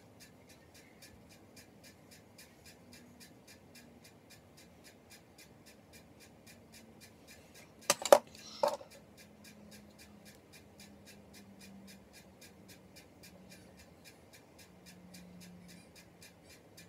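Faint, even ticking, about five a second, with a sharp clack a little past halfway and another just after it, as a plastic makeup compact is handled and set down.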